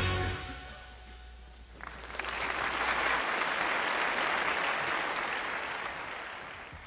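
Audience applauding as the children's song ends: the music's last notes die away in the first two seconds, then the applause swells and tapers off near the end.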